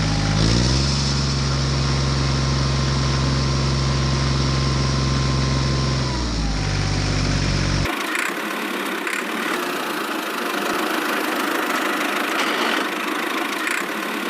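A small engine running steadily. It speeds up about half a second in and slows again around six seconds. Then it cuts abruptly to a rougher, hissing mechanical noise with no low hum.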